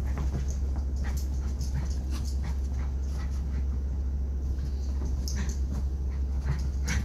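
Two small dogs play-fighting on a rug: a stream of quick scuffles and clicks, with some dog whimpering, over a steady low hum.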